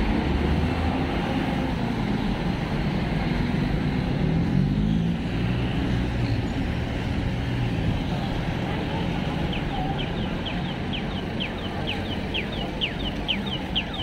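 Busy city street ambience: a steady wash of crowd and traffic noise. From about ten seconds in, a quick run of short, high chirps, each falling in pitch, about three a second.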